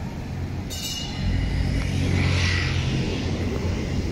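Low rumble of an approaching La Brugeoise-built PCC tram running along street rails, growing louder about a second in. A short bright metallic ring sounds just before that.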